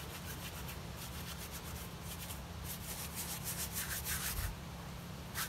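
Wide bristle brush scrubbing varnish onto a canvas oil painting: quick, repeated scratchy back-and-forth strokes, with a short pause near the end.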